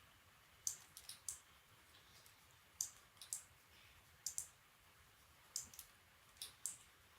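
Computer mouse button clicks while painting on screen: sharp, light clicks, mostly in close pairs, about one pair every second or so.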